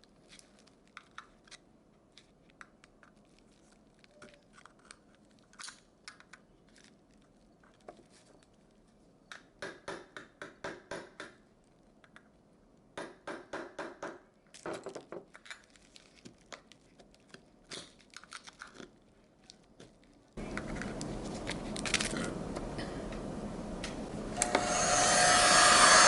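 Clicks and quick rattling runs of small metal parts and tools being handled. About twenty seconds in, a steady machine noise starts suddenly, and it grows much louder with a held tone near the end.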